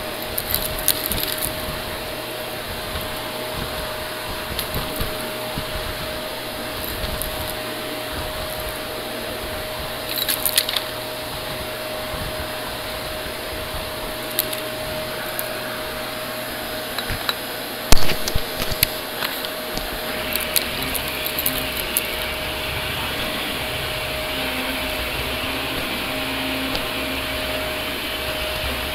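Green Shark Navigator upright vacuum running steadily over a hard laminate floor, with sharp crackling clicks as crumbs and bits of debris are sucked up, the loudest about 18 seconds in. Its hiss turns brighter about two-thirds of the way through.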